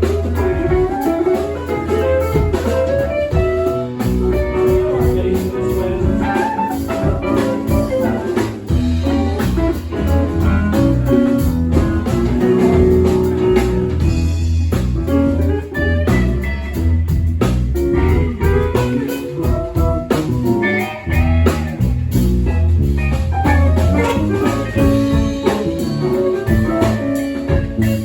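Live band playing an instrumental passage: guitar over a bass line, with drums keeping the beat.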